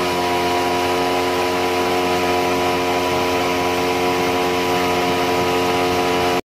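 Boat's outboard motor running at a steady cruising speed, an even hum that holds one pitch throughout, cutting off suddenly near the end.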